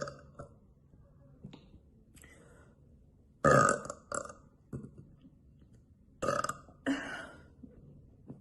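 A woman burping: a loud burp about three and a half seconds in with a short one right after it, then two more burps close together near the end.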